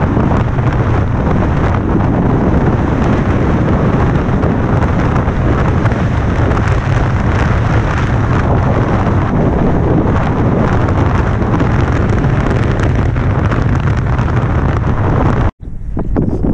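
Strong wind blowing across the camera microphone, a loud, steady, low rush of noise. It cuts out for an instant near the end and comes straight back.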